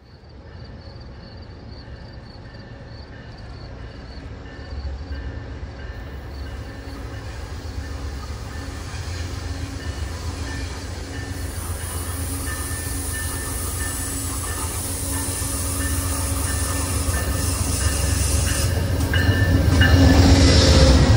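Passenger train approaching on the rails, its low rumble growing steadily louder until it is loudest as the train passes close by near the end.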